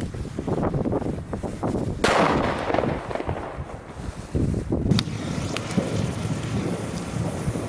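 A cannon salute firecracker (Kanonenschlag) goes off about two seconds in: one sharp bang with a rumbling tail that dies away over about a second and a half. A fainter crack follows about five seconds in, over low rumbling noise.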